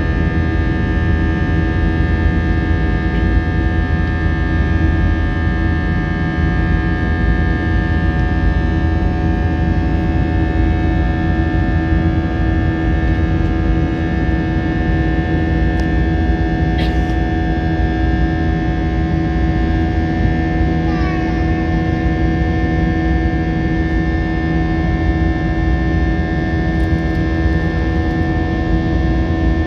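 IAE V2500 turbofan of an Airbus A321 heard from inside the cabin while climbing after takeoff: steady engine and rushing air noise with a constant drone of several held tones.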